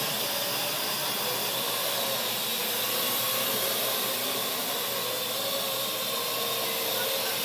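Parrot AR.Drone quadcopter's four propellers and electric motors whirring steadily in flight. A high, even whine wavers a little in pitch as the drone manoeuvres.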